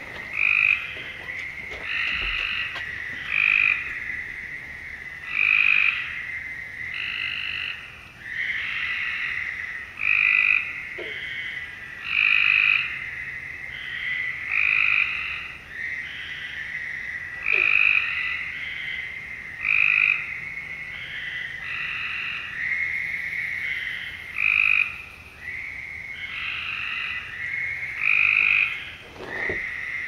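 A chorus of frogs calling at a pond: loud, fairly high calls repeating every second or two over a steady high drone.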